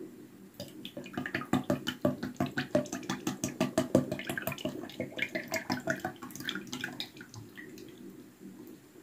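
Sunflower oil glugging out of a bottle into a blender beaker of pea liquid: a quick uneven run of gurgles and splashes that starts about half a second in, is loudest in the middle and tails off about three quarters of the way through.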